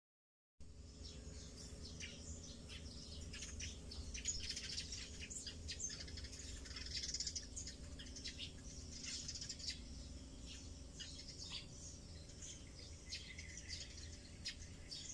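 Birds chirping in the background: many short, irregular high calls over a faint low steady hum. The calls start about half a second in, after a moment of silence.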